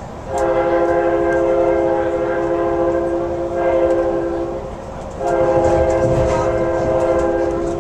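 Locomotive horn of the train's Amtrak F59PHI lead unit, heard from inside a passenger car: a chord of several notes sounded in two long blasts with a short break a little past halfway, over the low rumble of the moving train.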